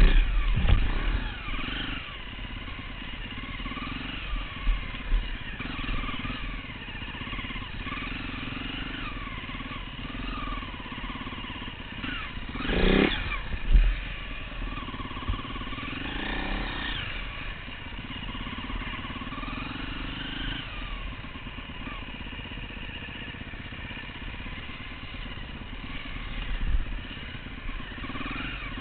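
Enduro dirt bike engine running while ridden off-road, its pitch rising and falling over and over with the throttle, with one sharp rising rev about halfway through. A few loud knocks stand out near the start and just after the rev.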